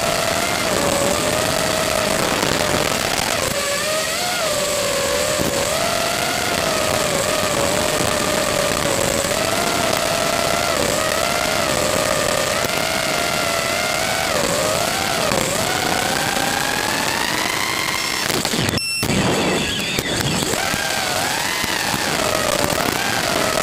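5-inch FPV quadcopter's 2205 2300kv brushless motors and props whining in flight, the pitch wavering up and down with the throttle and climbing steadily shortly before a brief crackling break in the sound about nineteen seconds in, where the video link drops into static.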